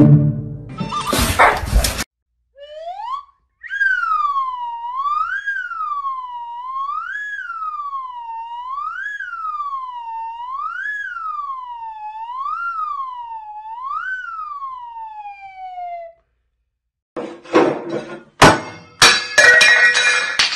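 An electronic siren-like wail that rises and falls about every two seconds for some thirteen seconds, then stops. It is followed near the end by sharp knocks and a clattering burst.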